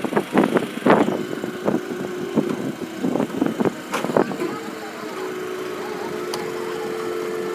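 Engine running steadily with a low, even hum, coming in about halfway through after a stretch of short, broken sounds like voices and knocks.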